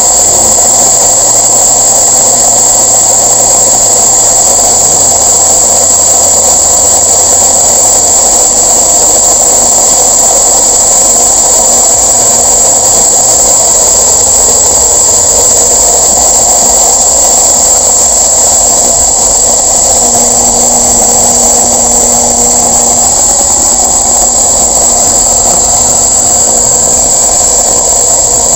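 Radio cassette recorder's speaker giving out a loud, steady hiss with a low hum, without a break. With the open headphone jack bypassed, sound is reaching the speaker again.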